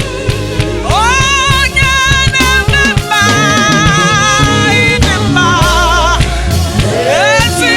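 Gospel worship music: a solo voice sings long held notes with wide vibrato over drum kit and bass. The voice slides up into a note about a second in and again near the end.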